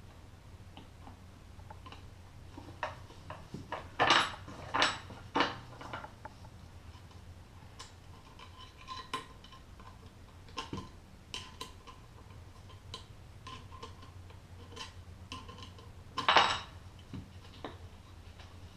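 Small metal parts and screws of a Motorcraft 2100 carburetor clinking and tapping on a hard work surface during disassembly. Scattered light ticks run throughout, with a few louder clanks about four to five and a half seconds in and again near the end.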